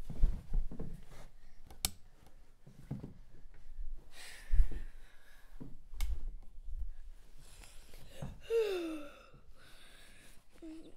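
Scattered soft knocks and rustles in a small room, with a short falling pitched sound near the end, like a child's sigh.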